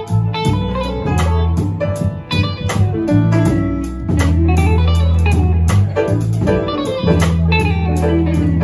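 A small live jazz combo plays: electric guitar and electric bass over a drum kit with steady cymbal strokes, and a grand piano.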